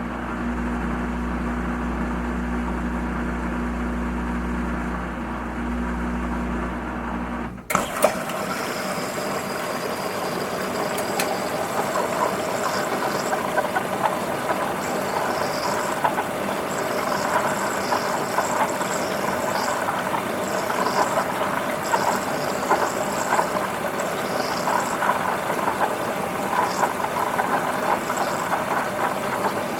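Washing machine running: a steady low motor hum, then a sharp click about eight seconds in, after which the hum stops and a rough, rushing noise with small ticks carries on.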